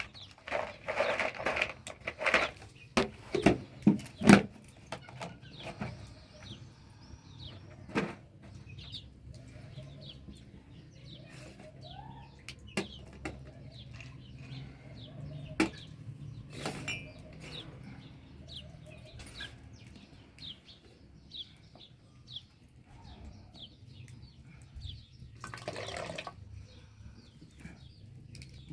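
Several sharp clinks and knocks in the first few seconds, then small birds chirping in short calls, with scattered clicks and a brief rush of noise near the end.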